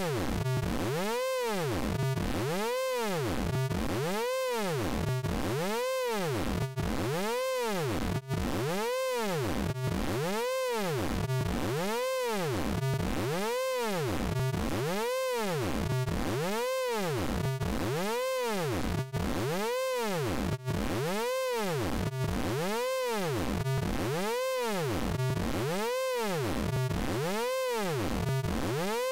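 Synthesized sound effect from the Prosoniq Orange Vocoder plug-in: a buzzy, many-harmonic electronic tone that sweeps up and down in a steady repeating cycle, about once every second and a half.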